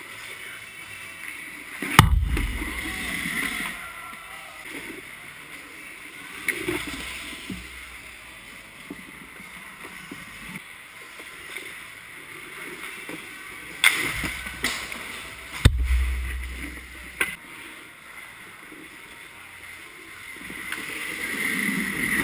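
Ice-hockey rink sounds heard from inside the goal: skate blades scraping the ice and a few sharp knocks of puck and stick impacts, the loudest about two seconds in and a cluster between fourteen and seventeen seconds. Scraping grows near the end as the goalie moves across the crease.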